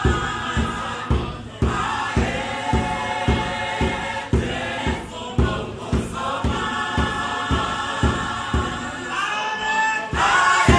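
A choir sings a Zulu gospel song in harmony over a steady low thumping beat of about three thumps a second. The sung chord thins out briefly near the middle, then the full harmony returns.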